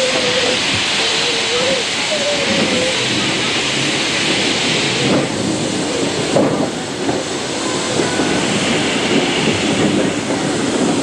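Small industrial tank steam locomotive hissing steam as it moves off slowly over pointwork. The loud hiss cuts off sharply about five seconds in, followed by a few knocks and quieter hissing later.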